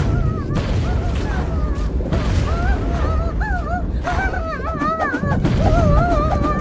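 Animated cartoon soundtrack: a character's high-pitched nonsense vocalizations, rising and falling in short phrases, over a heavy low rumble.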